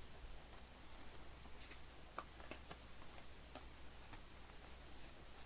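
Faint, scattered light clicks and ticks of baseball trading cards being handled and flipped through by hand.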